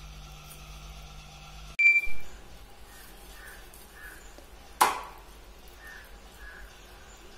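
A short, high metallic ping about two seconds in, then a single sharp clink of metal against a steel dish nearly five seconds in, with faint sounds of raw pork being cut by hand in between.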